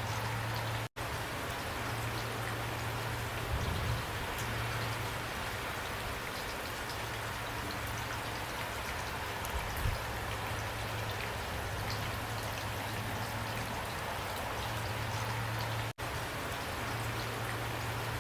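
Steady rain falling, an even patter of drops with a low undertone and a couple of soft low thuds. The sound cuts out for an instant twice.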